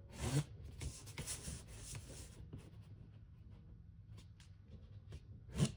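A ballpoint pen scratching across cardboard as a line is drawn. There are a few scratchy strokes in the first two seconds, then it goes fainter, with a short louder rub near the end.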